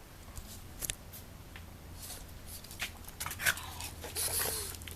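Two puppies, a black pug and a Shiba Inu, play-wrestling: scattered scuffles and taps of paws and bodies, with a short pitched dog noise and a breathy hiss near the end.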